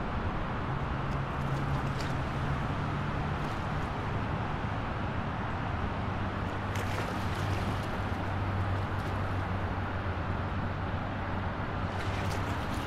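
Churning, rushing water of a large cruise ship's wake as the ship runs at speed, mixed with wind on the microphone and a steady low hum from the ship.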